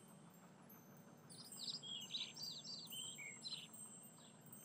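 Faint birdsong: a quick run of short, high chirps that drop in pitch, starting about a second in and lasting a couple of seconds, then a few single chirps.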